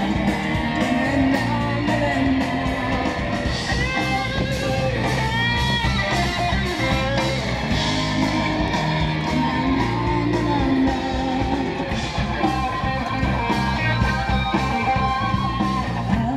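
Rock song with guitar and a singing voice over a steady beat.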